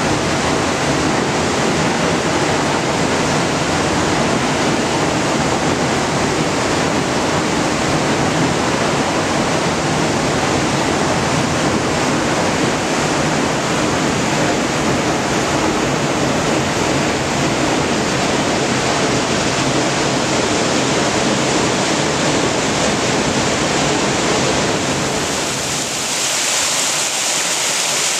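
Steady rush of falling water from a waterfall and creek. About 26 seconds in it changes to a thinner, hissier splashing of a small cascade over rocks.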